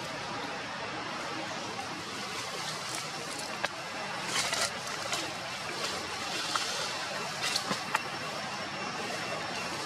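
Steady outdoor background noise, with a few sharp clicks in the middle and faint steady high tones later on.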